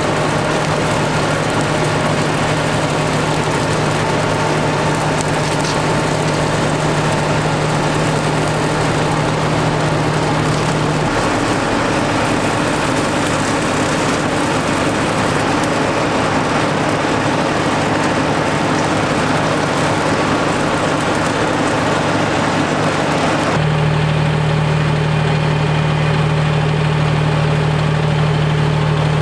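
John Deere 5075E tractor's diesel engine running steadily while it pulls and powers a 12-foot E12 batwing rotary cutter through grass and brush. The drone changes about eleven seconds in, and again near the end, where it becomes deeper and fuller.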